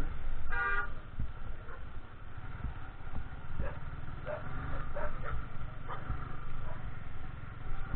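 Dog barking over a motorcycle engine running low and steady: one short high yelp about half a second in, then a few shorter, fainter barks around the middle.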